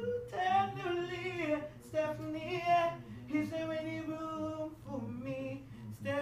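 A barber singing unaccompanied in a high voice, holding long wavering notes that slide from one pitch to the next.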